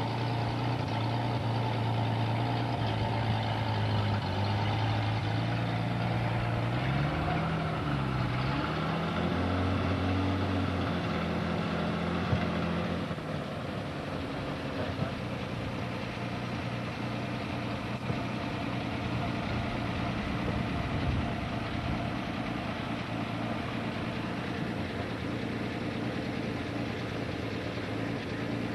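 1956 Ford Zephyr Mk II's straight-six engine running, loud and noisy through holes in the exhaust pipe. Its pitch dips and rises again between about seven and ten seconds in, then it settles to a lower, slightly quieter idle from about thirteen seconds in.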